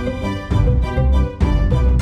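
Background music with a steady beat: sustained pitched notes over regular bass hits.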